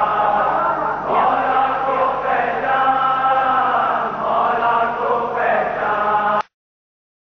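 Male voice singing a manqabat, an Urdu devotional song, in long held, ornamented lines. The sound cuts out abruptly into dead silence near the end.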